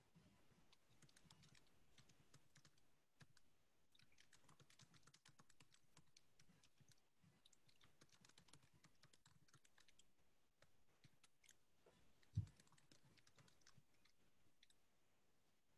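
Faint, irregular clicking of computer keyboard typing, with one low thump about twelve seconds in.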